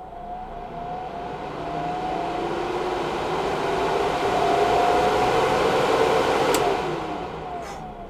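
Spray booth exhaust fan switched on and whirring up to speed, its pitch rising for about five seconds with a strong rush of air. A switch clicks about six and a half seconds in, and the fan winds down, its whir falling in pitch.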